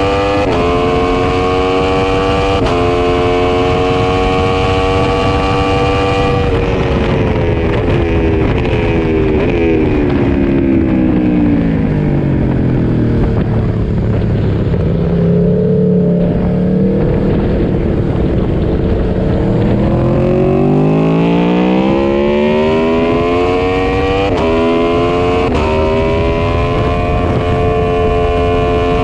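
Yamaha MT-10 SP's crossplane inline-four engine under hard acceleration, with two quick upshifts at the start. The revs then fall steadily for about seven seconds as the bike slows for a corner and stay low for a few seconds. They climb again, with two more quick upshifts near the end, over a steady rush of wind noise.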